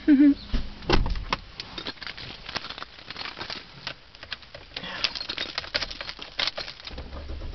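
Car keys jangling and clicking as the key is handled and pushed into a Toyota's ignition, with a low steady engine rumble coming in near the end as the car starts.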